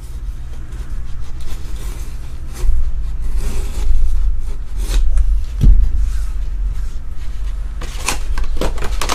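Cardboard collector box handled and turned on a tabletop: scattered rustles, scrapes and light knocks, one sharper knock a little over halfway, over a steady low hum.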